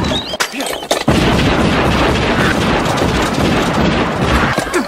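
Movie shotgun sound effects: a few sharp bangs in the first second, then a loud, dense rush of noise from about a second in that holds for nearly four seconds and breaks off near the end.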